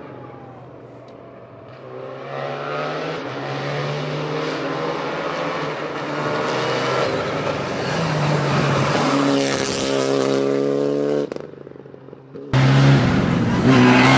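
Renault Clio Rally5 rally car approaching on a stage, its engine revving up and dropping back through repeated gear changes as it grows louder and passes close, about ten seconds in. After a brief quieter gap, a new shot near the end has the engine running loud and close.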